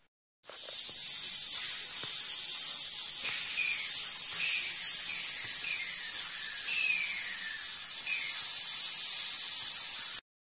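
Air compressor letting out its air: a loud, steady, noisy hiss that starts about half a second in and cuts off suddenly near the end.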